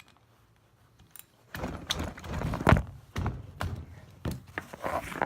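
A run of heavy metal clunks and knocks as a cast-iron semi-hermetic compressor body is shifted and rocks on the work surface. It starts after a quiet second or so, and the loudest knock comes near the middle.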